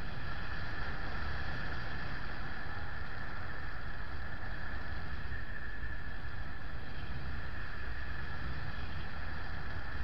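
Steady rush of airflow over the microphone of a camera on a paraglider in flight, with a steady high whistle over it.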